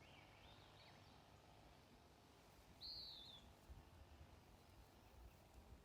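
Near silence with faint bird calls: a short chirping phrase at the start and a single clearer, arching whistled note about three seconds in.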